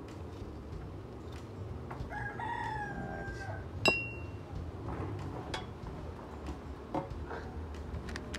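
A rooster crows once, a single call of about a second and a half. Just after it comes a sharp metallic clink with a brief ring, the loudest sound, likely the knife striking the stainless steel pan. Light knife clicks are heard as a scotch bonnet pepper is cut.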